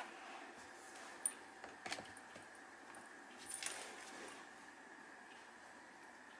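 A cat moving in a plastic basket and batting a weighted roly-poly toy: a few light knocks and clicks, one sharp click a little past a second in, and a short clattering rattle around three and a half seconds in as the toy is knocked and rocks.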